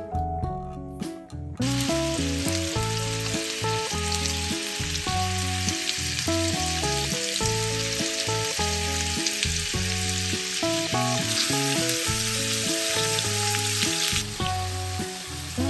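Instrumental music with a bass line and melodic notes, joined shortly after the start by a steady crackling sizzle that eases off somewhat near the end.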